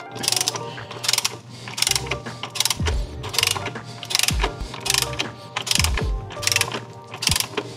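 A hand ratchet clicking in short runs, about one run every three-quarters of a second, as axle bolts are screwed in until they seat but not yet torqued. A few dull knocks come in between.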